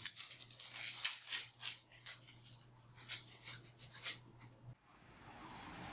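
Faint rustles and light clicks of handling over a low steady hum; the hum cuts off near the end.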